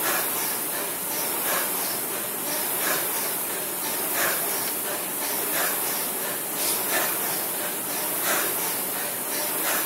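Concept2 rowing machine's air-resistance flywheel fan whooshing steadily under hard rowing, surging with each stroke about every second and a half.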